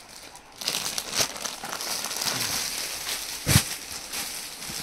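Plastic-wrapped clothing packets crinkling and rustling as they are handled, with a short knock about a second in and a louder thump about three and a half seconds in.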